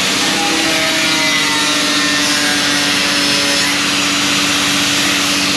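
A power tool running steadily, a constant hum under a dense hiss.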